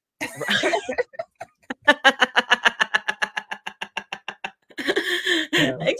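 Women laughing over a video call: a breathy burst, then a long run of quick, even laugh pulses, then a breathy tail.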